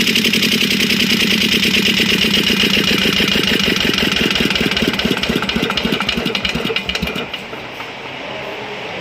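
Diesel engine of a 200 amp welding generator running, then shut down: its firing beats slow and die away about seven seconds in, leaving a quieter steady hum.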